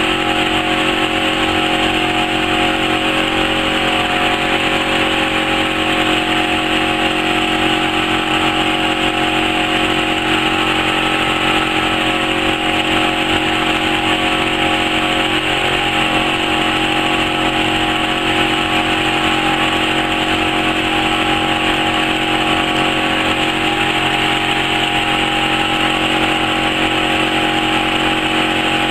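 Automatic-feed laser fabric cutting machine running: a steady, unchanging machine hum with a hiss over it while the laser head cuts patterns in the cloth.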